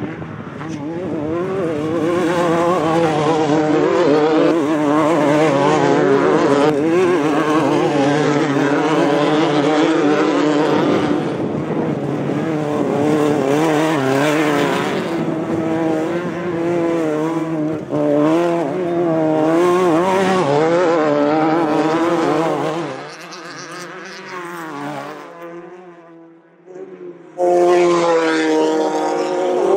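Off-road race vehicle engines running hard, their pitch rising and falling as the throttle is worked. It drops off for a few seconds about three quarters of the way through, then another engine comes in loud near the end.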